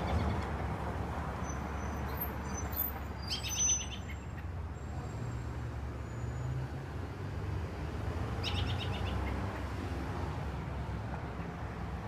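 American robin calling: two short bursts of rapid chirps, about three and a half and eight and a half seconds in, with thin high whistles just before the first burst. A low steady rumble runs underneath.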